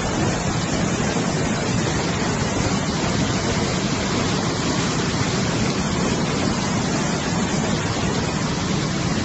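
Swollen, muddy floodwater rushing and churning over a drop in a river, a steady loud rush with no breaks.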